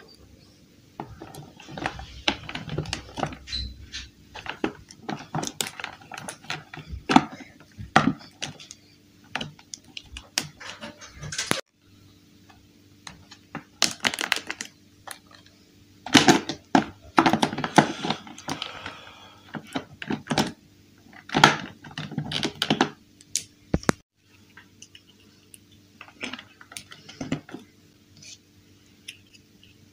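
Hard plastic toy dollhouse pieces clicking and clattering as they are handled and snapped together, a string of irregular clicks and knocks broken by short pauses.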